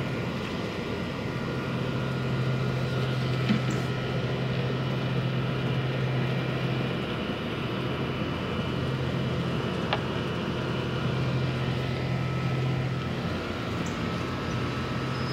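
Garden hose running water into a plastic bucket, a steady rushing with a steady low hum underneath.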